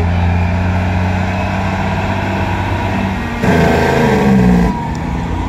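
Diesel engines of semi trucks running steadily as they go by, a low drone. About three and a half seconds in, a louder blast with pitch that bends up and down lasts just over a second.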